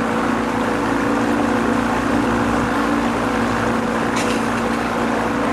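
Motor of a river raft running steadily, a constant hum with a few steady tones under a haze of water and wind noise.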